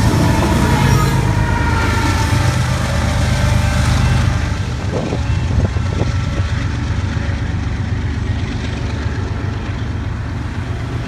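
Diesel freight locomotives passing close by, with engine rumble and wheel noise on the rails. About four seconds in the sound turns duller, leaving a steady low rumble with a few clicks.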